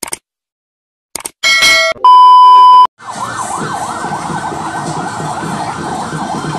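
Intro sound effect: a few clicks, a short chime and a loud steady beep. Then a police patrol truck's siren wails rapidly up and down, about two to three sweeps a second, over a low rumble.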